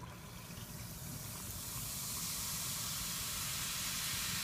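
Baked baking soda fizzing in vinegar: a steady hiss of carbon dioxide bubbles that builds over the first couple of seconds as the reaction gets going, then holds.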